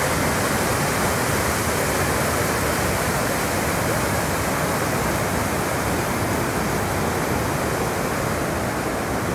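Waterfall cascading over rock ledges: a steady, even rush of water.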